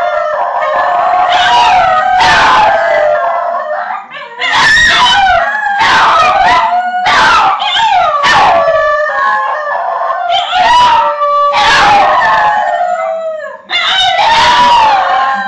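Several basenjis howling together in high, wavering screeches, their voices overlapping. The howling breaks off briefly about four seconds in and again near the end.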